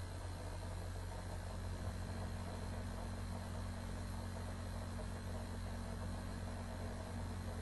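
Steady low electrical hum with a faint hiss underneath, unchanging throughout: background noise of the recording setup while nobody speaks.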